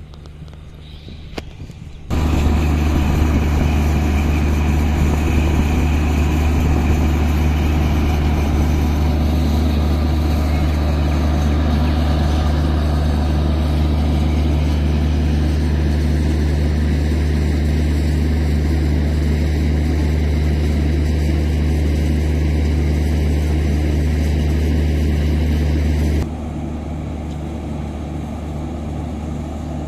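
Diesel generator set in a Bangladesh Railway power car running at a steady, constant speed with a deep, even drone and cooling-fan rush. It comes in loud suddenly about two seconds in and falls to a quieter hum a few seconds before the end.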